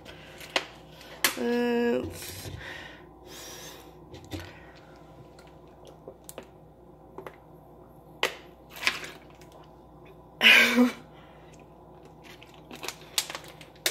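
A person drinking from a plastic water bottle: scattered small clicks and gulping sounds. Two short voiced sounds from the drinker stand out, one shortly after the start and one about ten seconds in; these are the loudest sounds.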